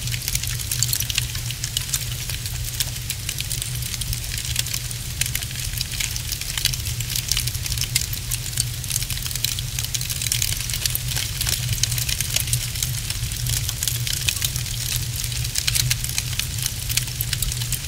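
Wood fire crackling in a fireplace: a dense, irregular stream of small crackles and pops over a steady low hum.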